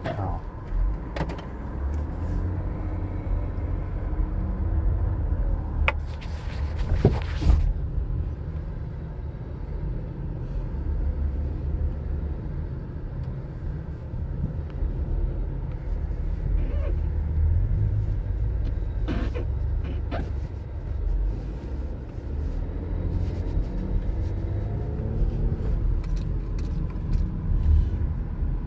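A car in motion, heard from the cabin: a steady low road-and-engine rumble, with scattered small clicks and knocks and a brief loud rush of noise about six to seven seconds in.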